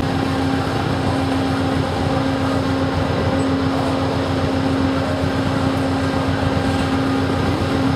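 Diesel locomotive idling: a steady hum with one constant low tone.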